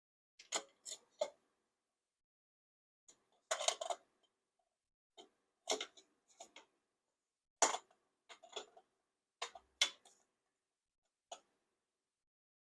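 Handling noise: scattered sharp clicks and short clattering knocks in small irregular clusters, with silence between them, as a camera mount is moved and set into place.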